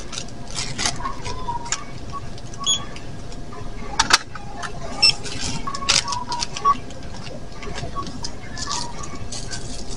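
Groceries being handled and scanned at a self-checkout: packaging rustling and items knocking down, the sharpest knocks about four and six seconds in, with a couple of short scanner beeps, over store background noise.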